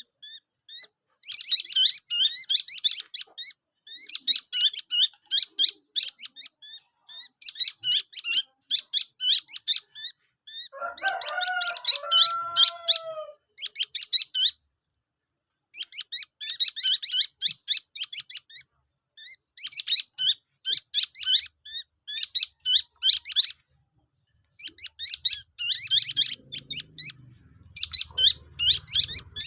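A ruyuk-ruyuk chick giving rapid bouts of high, squeaky chirps, each bout lasting about a second and repeating every second or two: a nestling's begging calls. About halfway through, a lower, drawn-out call sounds once.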